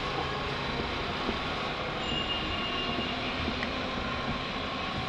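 Draiswerke T50 mixer running on its test run: a steady mechanical whir and hum from its electric drive, with a faint high whine for about a second, two seconds in.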